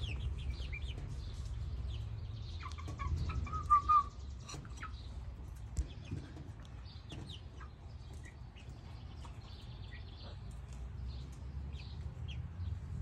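Two-month-old hens peeping and chirping in short, falling chirps, with a louder call about three to four seconds in.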